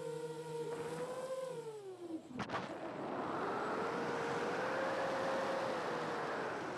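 Motors of a 7-inch FPV quadcopter whining, their pitch gliding down over the first two seconds. A sharp click comes about two and a half seconds in, then a rush of wind noise with the motor tone rising and falling as the drone descends.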